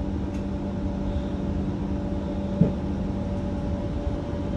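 Doha Metro train running through a tunnel, heard from inside the passenger car: a steady rumble with a steady low hum, and a single brief thump about two and a half seconds in.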